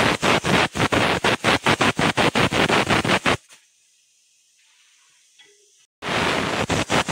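Aluminium stovetop pressure cooker whistling: steam jets out past the weight valve in rapid pulses, about five or six a second, as the cooker has come up to full pressure. The whistle cuts off suddenly about three and a half seconds in, and a second whistle starts abruptly near the end.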